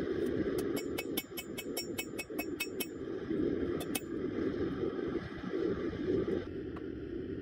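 Hand hammer striking red-hot rebar on a steel anvil, flattening it: a quick run of ringing blows, about five a second, for roughly three seconds, then stopping. The gas forge's burner rushes steadily underneath.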